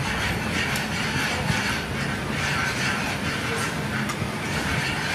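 Wire whisk beating milk in a metal saucepan, a steady scraping and swishing as cornflour is whisked in to thicken it.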